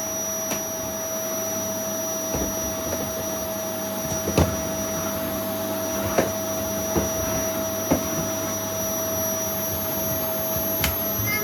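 Vacuum cleaner running steadily with a constant motor whine, and a few sharp knocks in the middle as it is pushed about.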